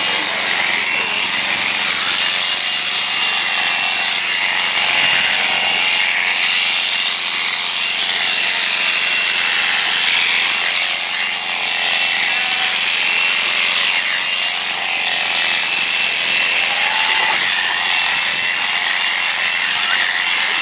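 Electric sheep-shearing handpiece running steadily with a thin high whine, its comb and cutter clipping through a sheep's fleece.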